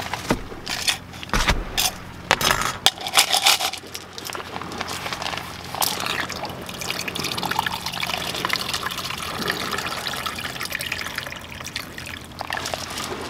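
Sharp rustles and clicks from handling a flexible plastic water bag, then from about four seconds in a steady trickle of water poured from the bag into a mug.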